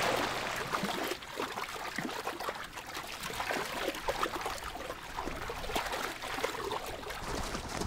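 Water splashing and trickling as African elephants wade and feed in shallow river water, with many small, irregular splashes.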